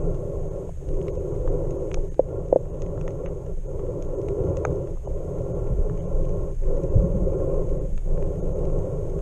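Underwater sound picked up by a camera in a waterproof housing: a steady, muffled rumble of water moving around the camera, with scattered faint clicks.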